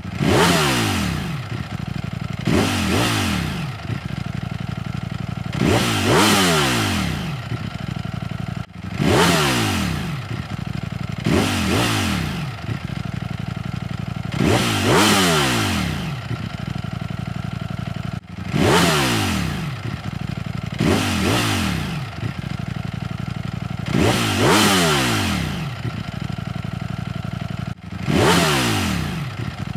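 Motorcycle engine running under way, revving up in repeated swells that each fall away in pitch. A steady engine drone and rushing noise sit underneath. The same sequence of three revs repeats about every nine seconds.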